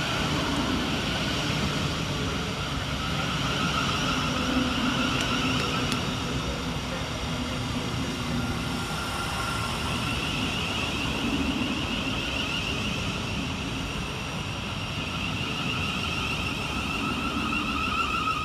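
Thameslink Class 700 electric multiple unit arriving into the station: a steady running noise with a whine held throughout.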